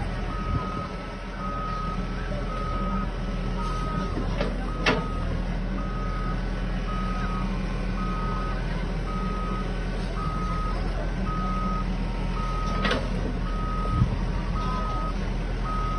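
Heavy-machine reversing/travel alarm beeping at one steady pitch about once a second, over the steady drone of a diesel engine, with a sharp clank about five seconds in and again near thirteen seconds.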